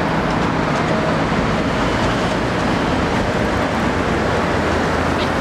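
Busy road traffic with a red double-decker bus driving up close and turning past; a steady low engine hum under the road noise, stronger near the end.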